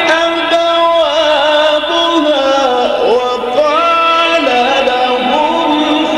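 A man reciting the Quran in the melodic tajweed style, holding long ornamented notes that slide up and down in pitch.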